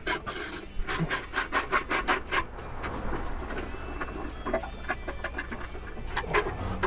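Socket ratchet being worked back and forth to back out a motorcycle fender bolt: a quick, even run of ratcheting strokes, about four or five a second, for the first two seconds or so, then quieter handling of the tool and bolt.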